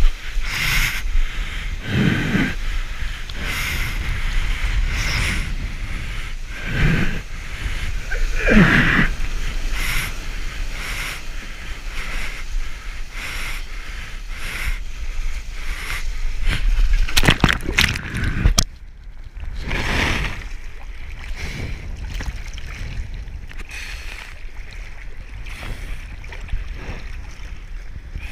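Choppy sea water sloshing and splashing right against a waterproof action camera held at the surface, with waves rushing past in irregular surges. About two-thirds of the way through, the sound drops suddenly and loses its hiss, then carries on more quietly.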